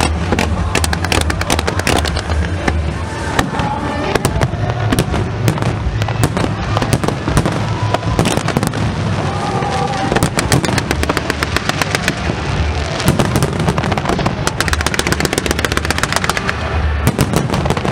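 Aerial fireworks bursting in a dense, continuous barrage of bangs and crackles, with a fast rapid-fire run of reports near the end.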